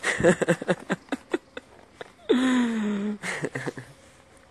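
Knocks and rustles of a phone being handled close to its microphone, then one drawn-out wordless vocal sound falling in pitch about two seconds in.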